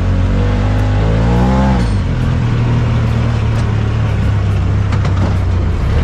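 Engine of a Polaris RZR side-by-side running under way, revving up in pitch about a second in, then holding steady.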